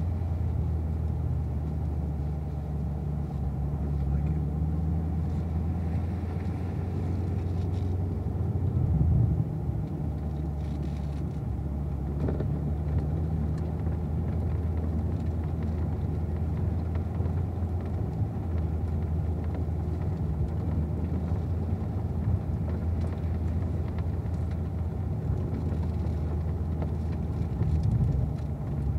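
Car engine running at about idle speed, a steady low rumble as the car creeps along at walking pace, swelling briefly about nine seconds in and again near the end.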